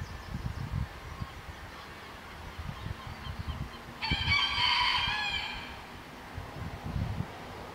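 A rooster crowing once, a single call of about a second and a half, about four seconds in.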